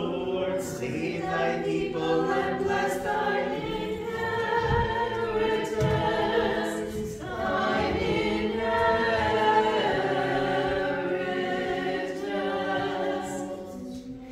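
Small choir singing an Orthodox liturgical chant a cappella, in sustained notes with several voices at once.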